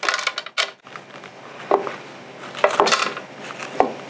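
Metal spoon scraping the seeds and stringy pulp out of a halved spaghetti squash into a plastic container, with a few short sharp knocks in between.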